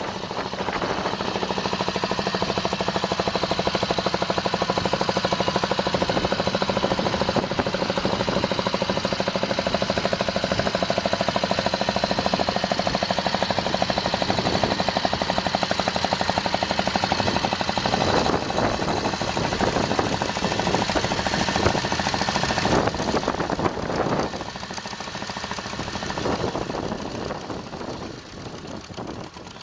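Tractor engine running steadily, dropping a little about 24 seconds in and fading away near the end.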